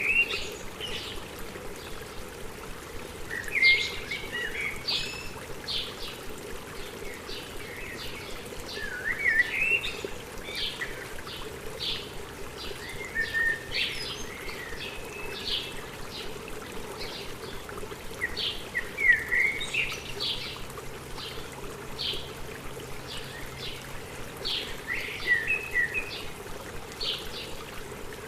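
Several birds chirping and calling over and over, short high chirps with some gliding calls, over the steady rush of flowing stream water.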